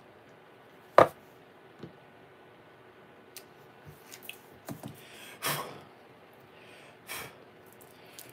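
Quiet handling noises and breathing from a man at a countertop after a sip of coffee. One sharp knock comes about a second in, then a few light taps, and two short breathy puffs around the middle and near the end.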